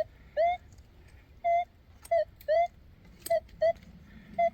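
Metal detector giving about eight short, medium-pitched target beeps at irregular intervals as the coil is swept over a buried metal object, with a couple of faint clicks between them.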